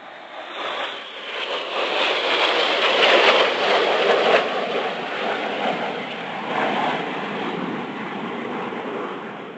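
Four BAE Hawk T1 jets flying past in formation: a rushing jet roar that builds over the first few seconds, peaks about three to four seconds in, then slowly fades as they pull away.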